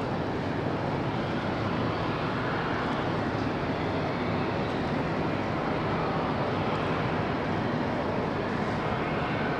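Seaplane's propeller engine running steadily, a broad even drone.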